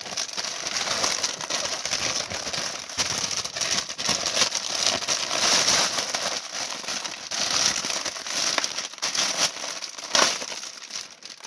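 Plastic packaging bag being pulled open and handled, crinkling continuously and dying down near the end.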